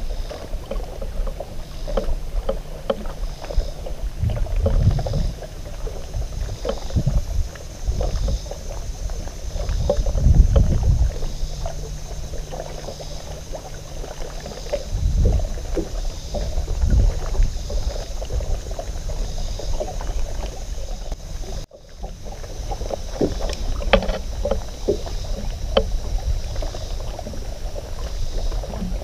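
Small waves lapping and slapping against the hull of a drifting bass boat, with uneven gusts of wind rumbling on the microphone.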